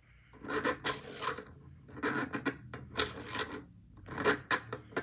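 A small ball rattling and clacking around inside a plastic fidget toy as the toy is bounced, with several sharp clacks among the rubbing and rolling noise.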